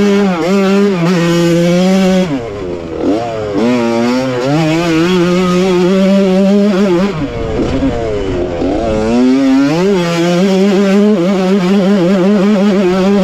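1985 Honda CR125 single-cylinder two-stroke engine being raced, its revs swinging up and down as the rider works the throttle and gears. The revs fall away briefly about two seconds in, dip again with a rougher rumble for about two seconds past the middle, then climb and hold high near the end.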